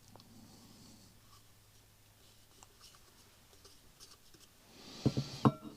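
Handling noise from the restored motorcycle speedometer and tachometer being turned over and moved about: faint rubbing and scraping, then a quick run of sharp knocks and clunks about five seconds in.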